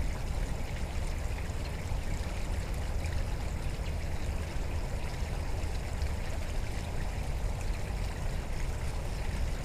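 Steady rush of a small creek's flowing water, with a low rumble underneath.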